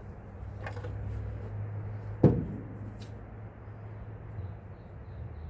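A single sharp metal clunk about two seconds in, as the removed torque converter is set down, with a couple of fainter knocks, over a steady low hum.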